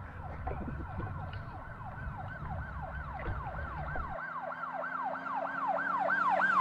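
Yelp-type siren: quick repeated falling wails, about three a second, getting louder over the last few seconds. A low rumble under it cuts off about four seconds in.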